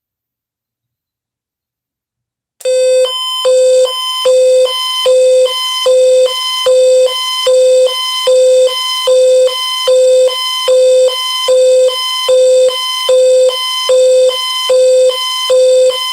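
Silence, then, about two and a half seconds in, a loud electronic alert tone starts beeping steadily about once every 0.8 s over a continuous buzzy tone: an emergency alert signal on an AM radio broadcast, announcing a child abduction (Amber) alert.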